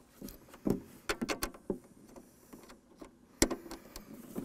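Cable plugs clicking and knocking as they are pushed into the front-panel input connectors of an APx517B acoustic analyzer. A scatter of small clicks, with one sharper click about three and a half seconds in.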